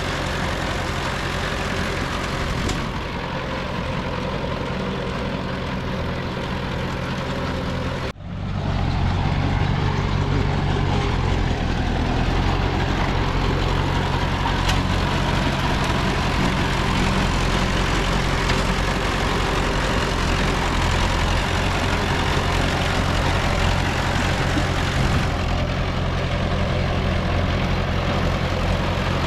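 Diesel engine of heavy earthmoving machinery running steadily. About eight seconds in the sound drops out for an instant, then carries on louder with a deeper drone.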